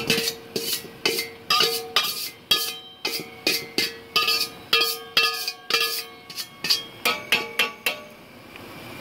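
Metal spoon knocking against a stainless steel mixing bowl, about two to three strikes a second, each leaving the bowl ringing, as chopped vegetables are knocked out of it; the knocks quicken near the end and stop about eight seconds in, leaving a steady hiss.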